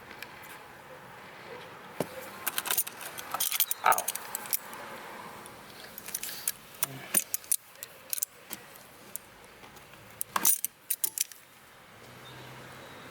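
Small metal and plastic parts clicking and jingling as wire connectors are handled, in clusters of sharp clicks, loudest about four seconds in and again about ten and a half seconds in.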